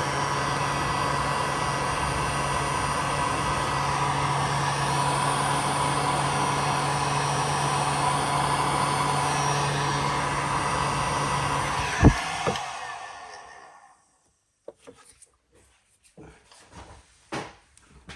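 A small electric motor machine runs steadily with a hum and an airy hiss. About twelve seconds in it is switched off with a sharp click and winds down over about two seconds. A few light clicks and knocks of handling follow.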